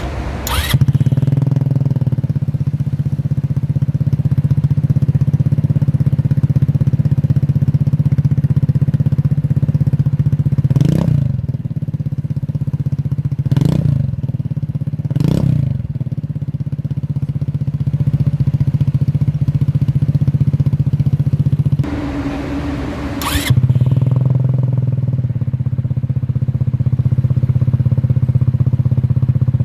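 Motor scooter engine idling steadily through its exhaust muffler, blipped three times in quick succession around the middle, with a short change in tone about two-thirds through before settling back to idle.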